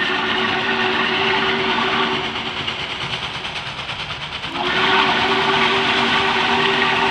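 Norfolk & Western 611 steam locomotive's whistle sounding a chord of several notes: a blast that cuts off about two seconds in, then after a pause a second long blast from about four and a half seconds in. The running train's rumble and hiss are heard beneath.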